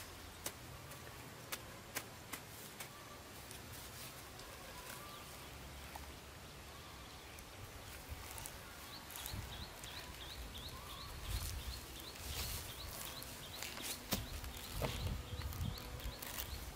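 Ears of corn clicking as they are dropped into a woven bamboo basket, then rustling and low bumps as the loaded basket is hoisted onto the back. A short high chirp repeats about three times a second through the second half.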